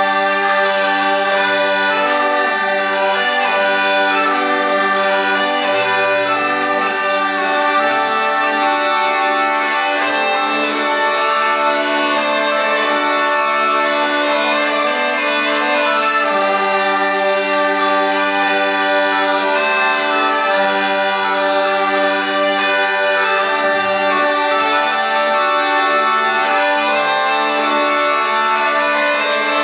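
Zampogna, southern Italian bagpipes, played as a duo: a reedy melody over steady held drones, without a break.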